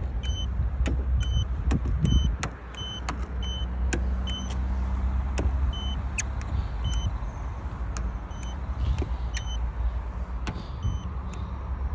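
A paint thickness gauge giving short, high beeps, about one to two a second, with light clicks as readings are taken on the car's body panels. Under it runs a steady low rumble.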